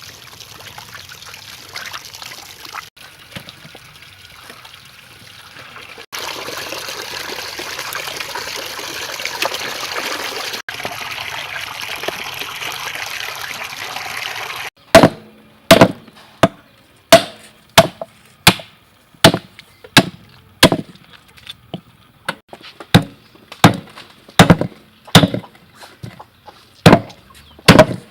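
Running water splashing for about the first half, broken by abrupt cuts. Then a cleaver chops steadily on a board, sharp ringing strokes about one and a half times a second.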